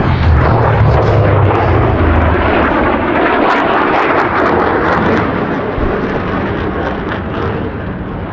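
Jet aircraft roaring past, with a few sharp crackles at its loudest; the roar eases off over the last few seconds.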